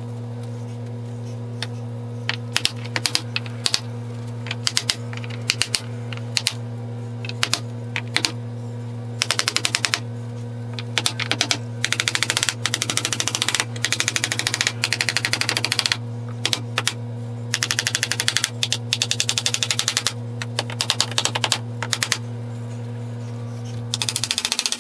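Hammer tapping wooden window trim into place, single taps and quick runs of light rapid taps. A steady low hum runs under it and stops just before the end.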